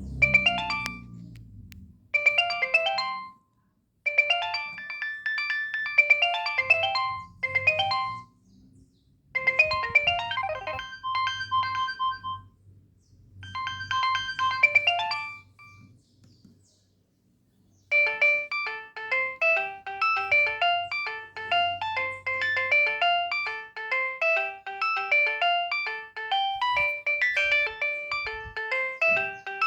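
Nokia 6560 mobile phone playing ringtones: a tune of clear electronic notes in short phrases with brief pauses, which ends about 16 seconds in. After a two-second pause, a faster, unbroken tune begins.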